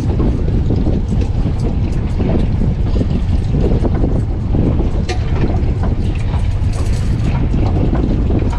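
Gale-force wind buffeting the microphone aboard a small boat: a loud, steady low rumble, with a sharp click about five seconds in.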